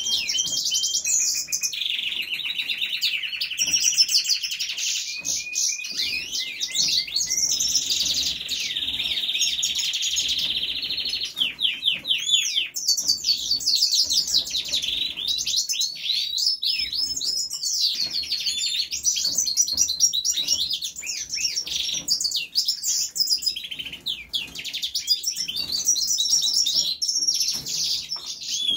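Seven-month-old European goldfinch singing a long, unbroken song of fast twittering notes and quick sweeps in pitch. Twice in the first half the song runs into a longer buzzy trill.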